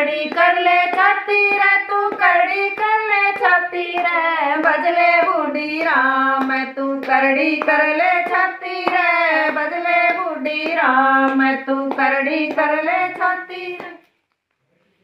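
Women singing a devotional folk bhajan together, kept in time with repeated hand claps. The singing and clapping stop abruptly near the end.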